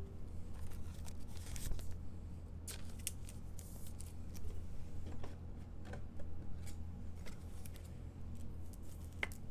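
A trading card being slid into a plastic sleeve and holder: irregular short crinkles and scrapes of plastic and card, over a low steady hum.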